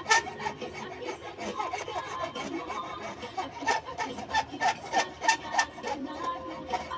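A hand file scraping along the edge of a steel bolo blade in rhythmic push strokes, about three a second, with the blade ringing faintly under each stroke.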